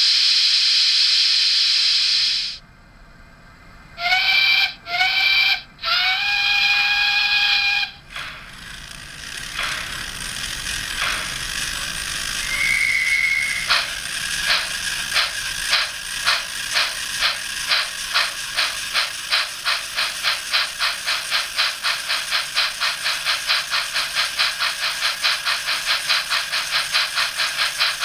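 Digital steam sound from an OO-gauge model of GWR City of Truro: a loud hiss of steam, then two short whistle toots and a longer whistle. Then exhaust chuffs start slowly and quicken steadily as the locomotive pulls away, with a brief higher tone about halfway through.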